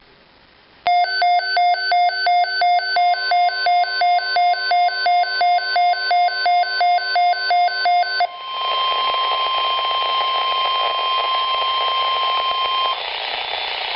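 Emergency-alert tones: a rapid run of identical electronic beeps, about three a second, for roughly seven seconds. Then a steady single-pitch weather-radio alert tone over radio static, which stops about a second before the end, leaving the static.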